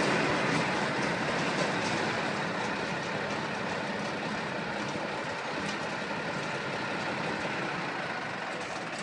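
Large farm tractor's diesel engine running steadily, slowly fading away.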